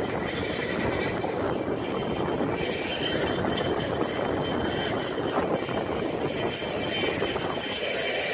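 Steady engine roar with a faint high-pitched whine above it, the upper part growing a little brighter about two and a half seconds in.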